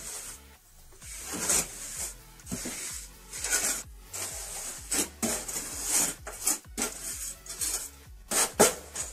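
Irregular scraping and rubbing strokes, one after another, with a few sharp clicks among them.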